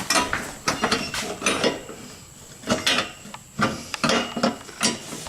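Metal booth frame parts and fittings clinking and clanking as they are handled and fitted, a string of irregular sharp knocks with a quieter stretch in the middle.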